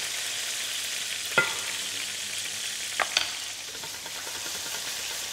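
Whole mushrooms and garlic cloves sizzling steadily in hot olive oil in a stainless steel pan as they brown, with a few short knocks about a second and a half and three seconds in.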